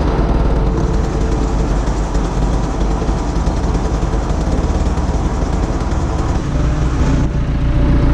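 Farm machinery engine running steadily close by. About six seconds in, its low rumble grows stronger and a faint steady tone comes in.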